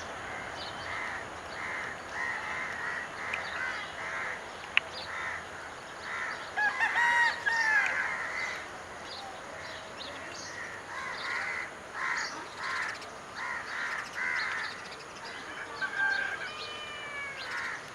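Crows cawing over and over, the calls coming in quick runs, with a louder cluster of calls about seven seconds in and a single sharp click a little before that.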